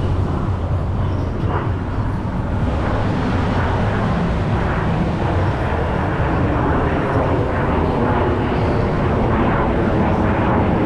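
Blue Angels F/A-18 Super Hornet jet engines in flight, a steady loud noise that holds its level throughout.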